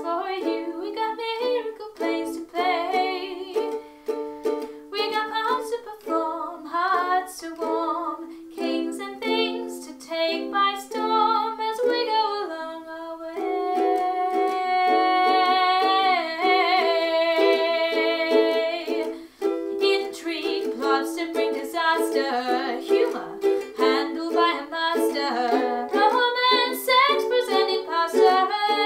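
A song accompanied on ukulele, with a woman singing. There is one long held note about halfway through, between quicker plucked phrases.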